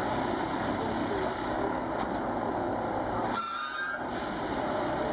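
An 08-4x4/4S-RT railway ballast tamping machine working on the track: a steady mechanical din from the machine. About three and a half seconds in, the low end briefly drops away and a short high whine comes through.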